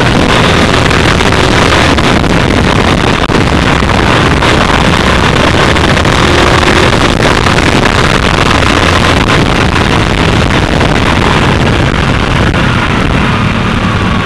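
Heavy wind noise buffeting the side-mounted camera's microphone, mixed with a Honda CBR150R's single-cylinder engine running at road speed. Near the end the noise eases a little and the engine's low hum stands out more.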